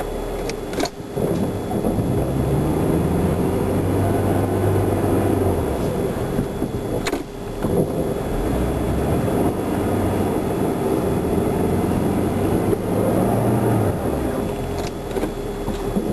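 Car engine and road noise heard while driving, the engine pitch rising twice as the car accelerates, about two seconds in and again near the end.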